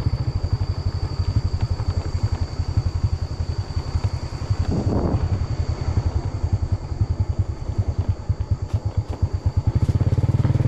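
Small motorbike engine running at low speed, with fast, even exhaust pulses and a steady high-pitched whine above it.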